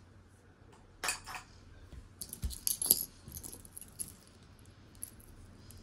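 Pieces of metal costume jewelry lightly clinking and jingling as they are handled and set down, with a few scattered sharp clicks.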